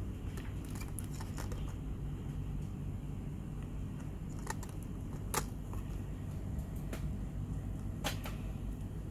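Steady low hum with a few sharp plastic clicks, the loudest about five seconds in and another near the end: a blister-packed fishing lure being handled and hung back on a metal display peg.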